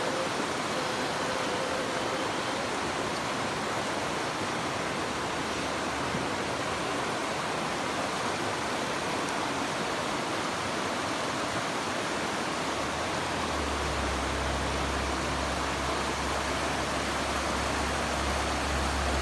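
River water running and rushing in a steady wash of noise. About two-thirds of the way through, a low steady rumble joins it.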